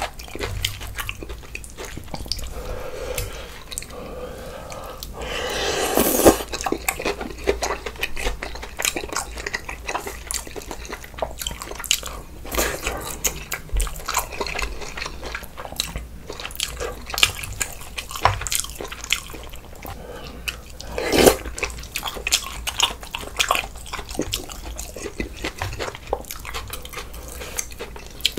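Close-miked eating of bulgogi hot pot and kimchi: wet chewing with many small mouth clicks. There are two longer, louder sounds, about six seconds in and again about twenty-one seconds in.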